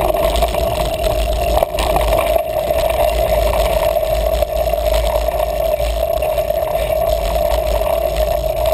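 Riding noise of a mountain bike on a dirt singletrack, picked up by a bike-mounted action camera: a constant low rumble with a steady hum over it.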